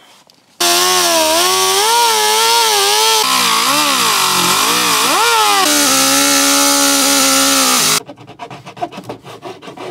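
Air-powered cutting tool trimming the plastic dashboard: a loud whine with hiss that wavers in pitch as the tool loads and unloads. It starts just over half a second in and stops abruptly about eight seconds in. Quick scraping strokes of a hand tool on the cut edge follow.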